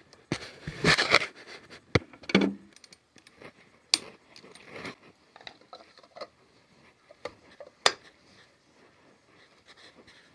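Metal hand tools clinking, knocking and scraping at irregular moments as a wrench works on the rear strut rod bolts. A longer scraping rustle comes about a second in, and sharp single clicks come near two, four and eight seconds in.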